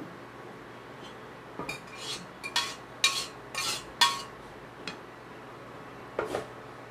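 A metal spoon scraping and clinking against a stainless steel saucepan, several sharp ringing clinks in quick succession, scraping out the last of the melted butter. Near the end, a duller knock as the pan is set down.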